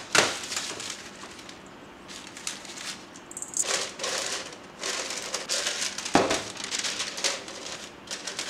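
Parchment paper rustling and crinkling in irregular handfuls as it is folded and pressed into metal loaf pans. A knock comes just after the start and another about six seconds in.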